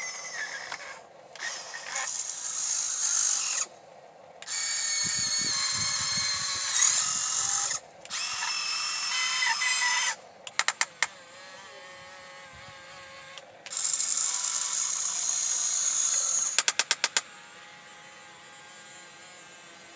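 Electric motors of a 1550 RC excavator whining in several bursts of a few seconds each as the boom, arm and bucket are driven to dig. Twice there is a short run of rapid clicks.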